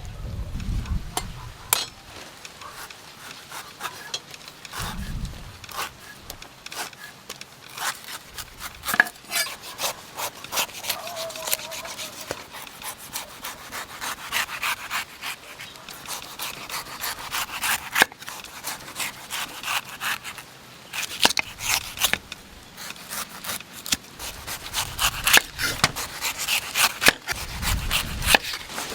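Knife cutting a coconut: many quick scraping, rubbing strokes of the blade through the husk with sharp clicks, getting denser and busier about a third of the way in, and a few dull thumps of the coconut being handled.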